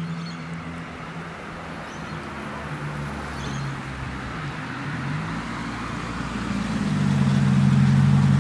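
Car engine running close by on the road, with road noise, the hum dipping in pitch briefly midway, then growing louder over the last second or two as the car draws nearer.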